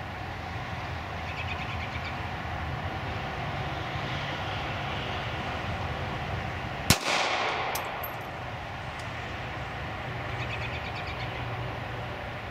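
A single shot from a SIG P238 .380 pocket pistol about seven seconds in: one sharp crack with a short echo trailing off.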